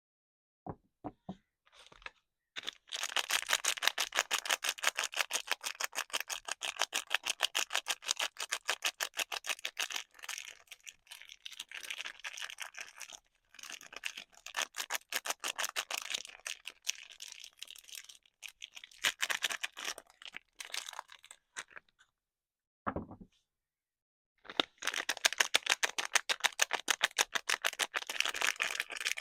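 Soap packaging being handled and unwrapped: its wrapping crinkles and tears in long bouts of rapid crackling, broken by short pauses. A brief dull knock comes about three-quarters of the way through.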